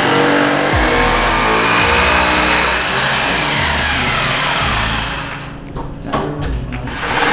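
Corded electric drill boring into a wall, running steadily, then stopping and starting in short bursts about five seconds in before running again near the end.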